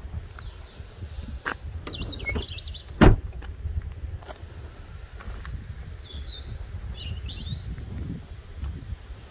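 Outdoor background of low rumbling noise with small birds chirping, about two seconds in and again around six to seven seconds in. One sharp knock about three seconds in is the loudest sound, with a few fainter clicks around it.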